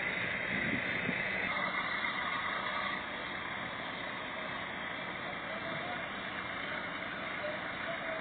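Diesel engines of a Nissan dump truck and a Cat wheel loader running steadily under load as the loader pushes the bogged truck out of the soft ground, a little quieter after about three seconds.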